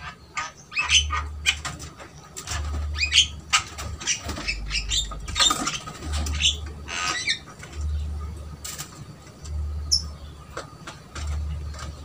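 Javan mynas calling: a string of harsh, squawky calls and chirps, heaviest in the first eight seconds, over a low hum that swells and fades about once a second.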